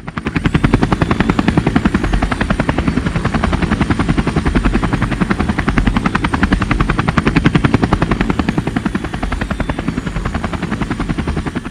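Small remote-control coaxial toy helicopter in flight: its electric motors and rotor blades whirring with a fast, even flutter and a thin high whine.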